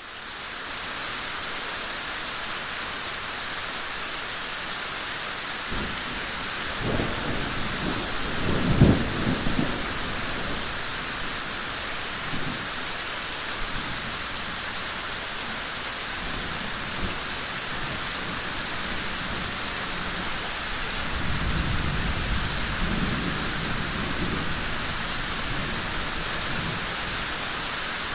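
Steady heavy rain fading in at the start, with rolling thunder rumbling in from about six seconds, peaking in a sharper crack around nine seconds, and a second, softer rumble a little over twenty seconds in.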